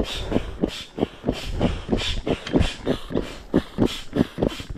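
Air pump inflating an inflatable boat, worked in quick, even strokes of hissing air about three a second; the boat is nearly fully inflated.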